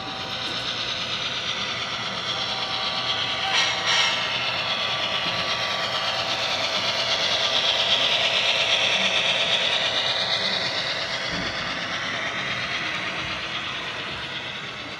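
HO scale model freight train led by a CSX GP38-2 model locomotive running past on the track, with a whine that shifts in pitch over the rolling of the wheels on the rails. A short clatter comes about 3.5 seconds in. It is loudest about halfway through as the locomotive passes close, then fades away.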